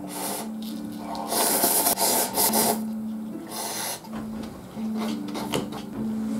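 Cup-ramen noodles being slurped loudly in three pulls: a short one at the start, a long drawn-in slurp from about a second in to near three seconds, and another short one just before four seconds. Steady held notes of background music run underneath.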